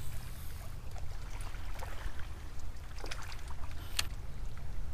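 Wind rumbling on a body-worn microphone by a lake, with a few faint ticks and one sharper tick about four seconds in.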